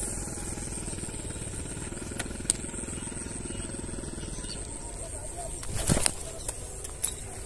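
A quiet open-air background with a faint steady high whine, a single click about two and a half seconds in, and a short rushing thump about six seconds in as the spinning rod is swung hard.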